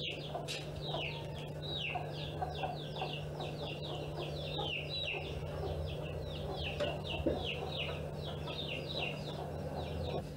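Birds chirping in a steady run of short, falling notes, about three a second, over a low steady hum.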